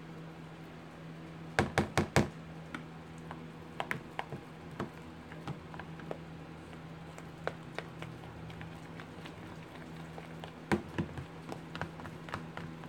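Metal spoon tapping and scraping against a plastic tub while stirring thick soap batter, with four sharp taps in quick succession about a second and a half in and another cluster near the end, and lighter clicks between. A fan hums steadily underneath.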